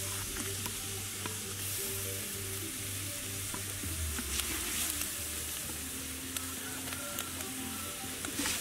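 Minced garlic sizzling steadily in hot oil in a large aluminium pot while a metal ladle stirs it around.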